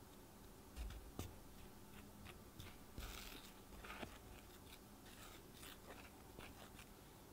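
Wooden spatula stirring dry bread flour in a glass mixing bowl: quiet, scattered scrapes through the flour with a few light knocks.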